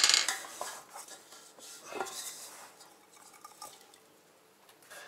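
Stainless steel food-processor bowl clattering and scraping as crumbly dough is scooped out of it by hand. There is a sharp knock at the start and another about two seconds in, then fainter rustling as the hands press the dough together on the counter.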